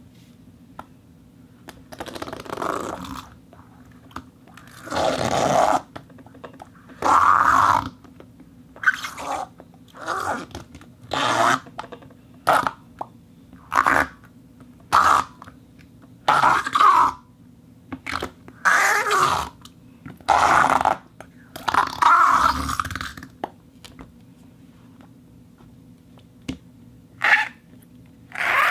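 Rubber half ball rubbing against a rubber sheet wetted with rosin water on a turntable disc, giving an irregular run of rough friction squeaks and groans. Some are short, others drawn out for a second or more.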